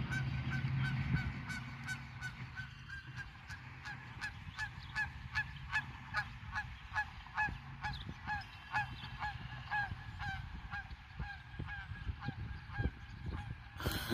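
A goose honking over and over in flight, about two honks a second, loudest in the middle of the series, over a low steady rumble.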